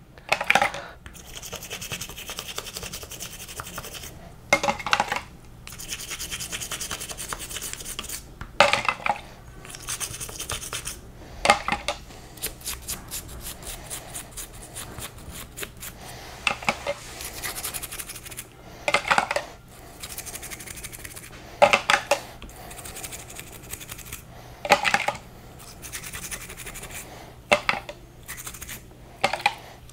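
Toothbrush bristles scrubbing the inside of an RC car's differential case, a continuous scratchy back-and-forth rubbing with louder, quicker bursts of strokes every few seconds.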